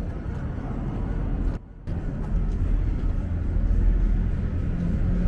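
Steady low rumble of outdoor city ambience, with no clear single source. It cuts out briefly about a second and a half in, then comes back slightly louder.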